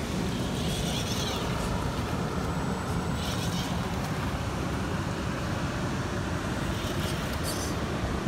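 Red Cat Gen 7 RC rock crawler driving slowly over rocks and gravel, its tires crunching in a few short bursts over a steady low rumble.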